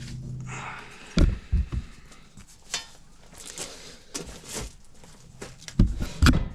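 Thumps, knocks and metal clatter of hands-on work at an HVAC package unit, with heavy thumps about a second in and twice more near the end. A steady low hum fades out in the first moment.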